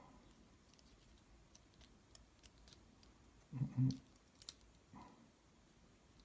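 Faint, scattered small metallic clicks and taps of a pin-tumbler lock cylinder being handled while it is shimmed open for disassembly, with one louder, short, low sound about three and a half seconds in.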